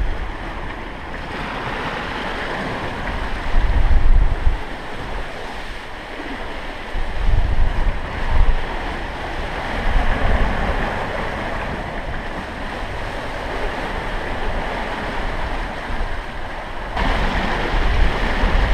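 Sea water rushing and breaking past a sailing catamaran's hulls, with wind buffeting the microphone in several stronger gusts.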